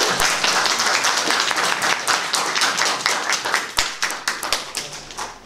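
Audience applauding, many hands clapping together, gradually thinning out and dying away near the end.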